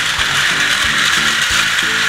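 Battery-powered plastic toy train running on plastic track, its gear motor giving a steady whirring rattle. A simple tune plays along with it, its notes changing every few tenths of a second.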